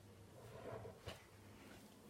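Near silence: faint room tone with a soft muffled rustle and a single small click about a second in.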